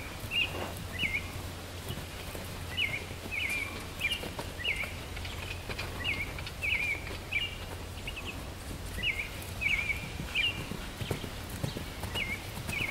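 Hooves of a loose Quarter Horse gelding beating on arena dirt, with a small bird chirping short repeated notes in little groups of two or three.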